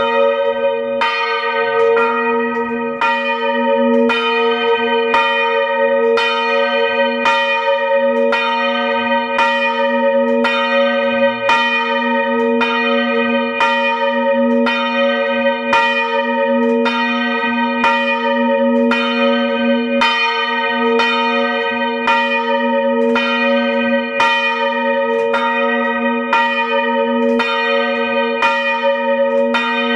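Two swinging church bells, Peter (about 450 kg) and Paul (about 380 kg), rung by hand with ropes, tolling continuously in a steady rhythm of about three strokes every two seconds, each stroke ringing on into the next.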